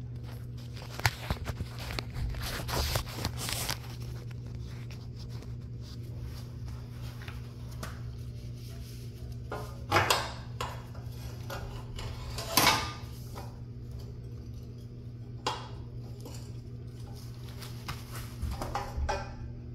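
Scattered metal clinks and clanks as hand tools and the chrome exhaust pipe of a 1974 Honda CB450 are worked loose and handled. Two louder knocks come near the middle.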